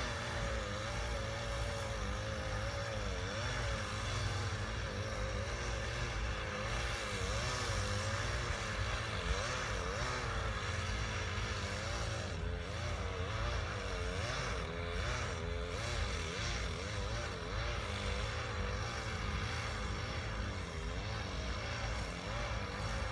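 Engine running steadily, its pitch wavering slightly up and down without any sharp revving.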